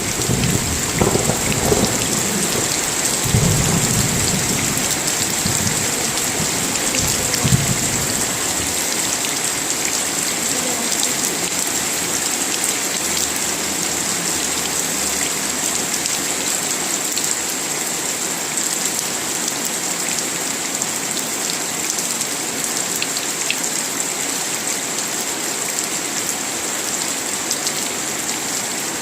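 Steady heavy rain with low rolling thunder that rumbles through the first several seconds and fades out about eight seconds in.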